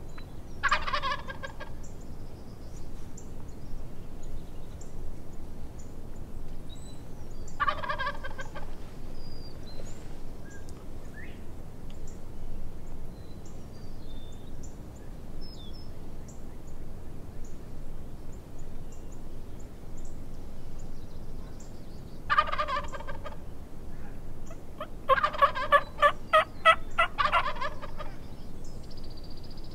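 Wild turkey toms gobbling: single gobbles about a second in, about eight seconds in and about twenty-two seconds in, then a longer, louder run of gobbling near the end. Faint chirps from small birds are heard between the gobbles.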